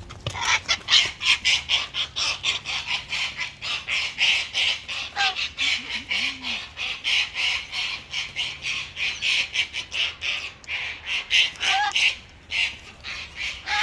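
Parrots squabbling: a long unbroken run of harsh, rapid squawks, about four a second. This is typical of breeding-season aggression between birds.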